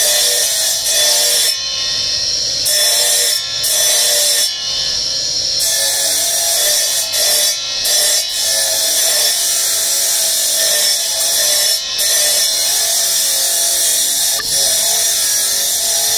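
Spinning abrasive disc grinding a small piece of marble, a harsh hiss that breaks off briefly several times as the stone leaves the wheel, over background music.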